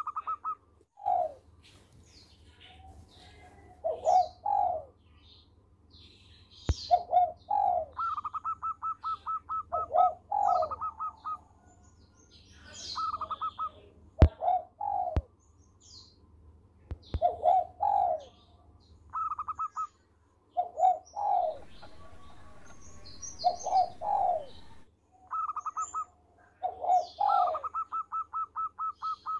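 Zebra dove (perkutut) singing its cooing song over and over: a quick stuttered run of short notes followed by lower, rounded coos, the phrase repeating every few seconds. Higher chirps of small birds and a few sharp clicks fall between the phrases.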